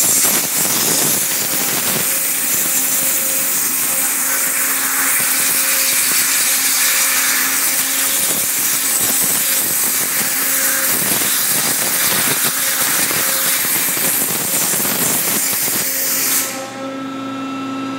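A 55,000 PSI waterjet cutting the flattened ends of steel tube struts: a loud, steady hiss of the jet over a constant pump hum. The jet cuts off suddenly about 16 seconds in, leaving the hum.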